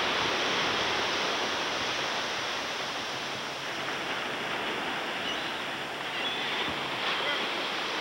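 Ocean surf, a steady even rush of waves.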